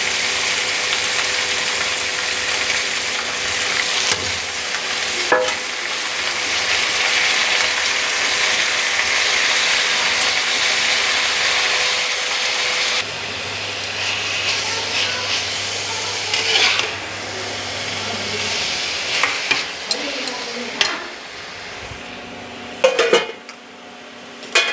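Food sizzling in a hot frying pan as it is stirred, with a spatula scraping and knocking against the pan. The sizzle is strong for the first half, then drops suddenly to a quieter frying, with a few sharp knocks near the end.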